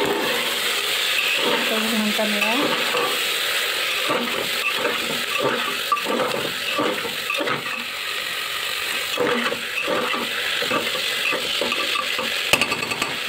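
Cut vegetables sizzling as they fry in an aluminium pressure cooker, stirred with a metal ladle that scrapes and knocks against the pot in quick, irregular strokes.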